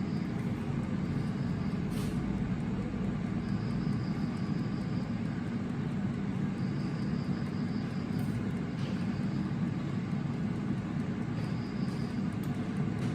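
Air fryer running with its fan giving a steady low hum, while a faint high tone comes and goes several times.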